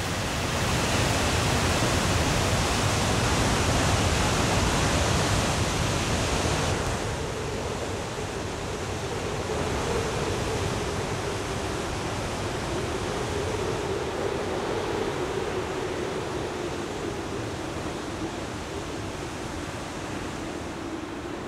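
Steady roar of the water thundering down Victoria Falls, a dense rushing noise. About seven seconds in it drops a little, and a steady, slightly wavering hum runs underneath for the rest.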